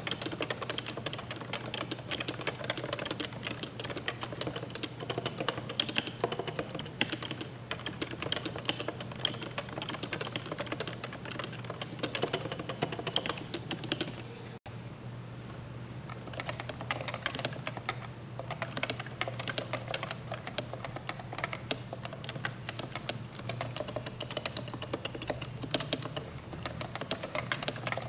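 Steady, fast typing on a Topre electrostatic-capacitive keyboard, its rubber-dome keys making a dense run of keystrokes over a steady low hum. The sound drops out for an instant about halfway through.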